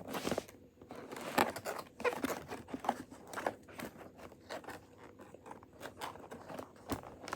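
Toy packaging being worked at by hand: plastic crinkling and rustling with irregular small scrapes and clicks as the toy is pushed against the box.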